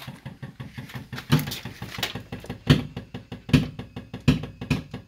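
Fuel pump running with a rapid, even pulsing of about six beats a second, with louder knocks about once a second over it.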